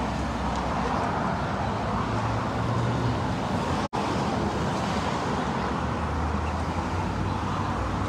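Steady road traffic on a busy multi-lane city street: cars and trucks passing with a low engine hum and tyre noise. The sound cuts out for an instant about four seconds in.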